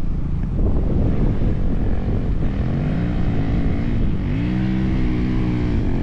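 Dirt bike engine revving under load as it climbs a steep sand slope. The pitch rises about halfway in, dips briefly, climbs again and holds, then falls away near the end. Heavy wind buffets the microphone throughout.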